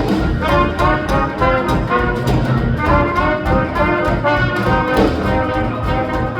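Live hot-jazz swing band playing an up-tempo number, horns carrying the melody over a steady swinging beat.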